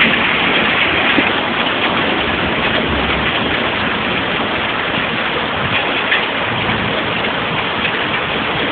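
Heavy rain pouring down in a thunderstorm: a loud, steady, dense hiss of rain hitting surfaces, with scattered ticks of drops.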